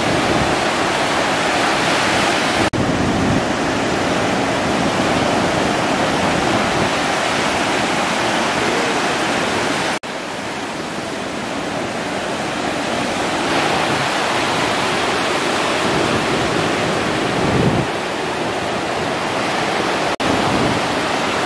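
Big surf breaking: a steady rush of crashing waves and churning whitewash. It changes abruptly about three seconds in, about ten seconds in and near the end.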